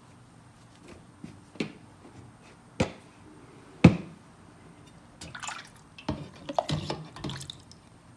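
Ford flathead fuel pump in a wire dip basket going down into a can of carburetor cleaner: a few sharp metal knocks against the can. It is then lifted out, with liquid sloshing and dripping off it.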